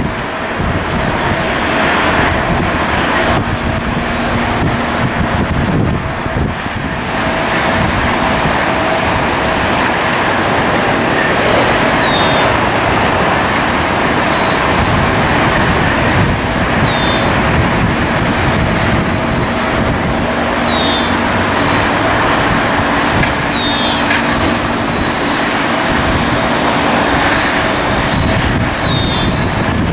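Jet airliner engines running, a loud steady rush with a faint steady hum in it. Short high chirps come every few seconds.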